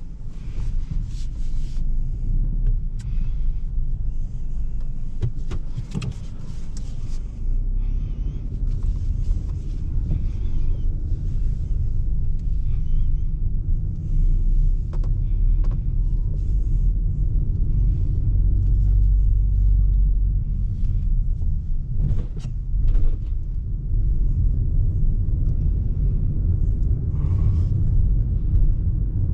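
A Citroën C4's 1.2 PureTech three-cylinder turbo petrol engine and its road noise, heard from inside the cabin while driving: a steady low rumble, with a few short clicks or knocks.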